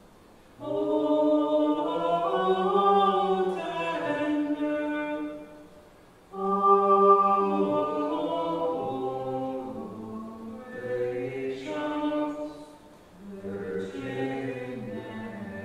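Choir singing unaccompanied plainchant, three long phrases of held notes with short breaths between them.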